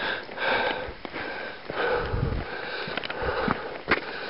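A hiker breathing hard, in and out through nose and mouth about once a second, with a few low thumps.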